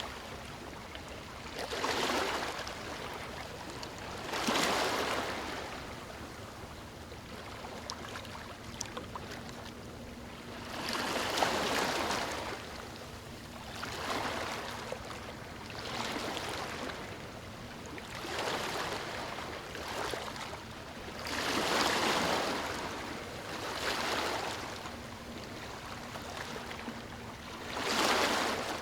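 Ocean waves washing onto a beach: a steady wash of surf that swells and fades every few seconds as each wave breaks and runs up the sand.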